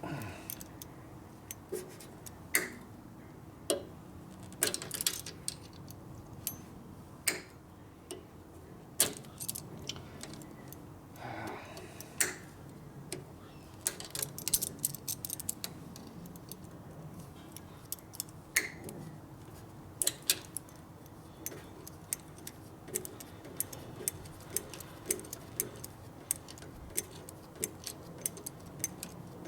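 Sharp metallic clicks and clinks of hand-tool work on motorcycle hardware, scattered at first and settling into a steady run of ticks in the last third.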